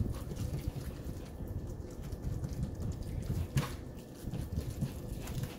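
Silicone spatula mashing and stirring oily canned sardines in a plastic tub: irregular wet squishing and scraping, with one sharp click about three and a half seconds in.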